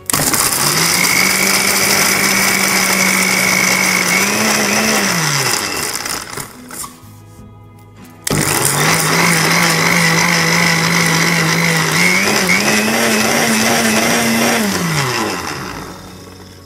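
Electric kitchen mixer grinder (mixie) run twice on pulse, grinding rock sugar (mishri) into dry powdered herbs. Each run starts abruptly, hums steadily, rises a little in pitch near its end, then winds down, with a short gap between the two runs.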